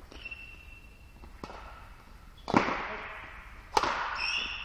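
Badminton rackets striking a shuttlecock during a rally: a light hit about a second and a half in, then two loud sharp cracks just over a second apart, each ringing out in the echoing hall.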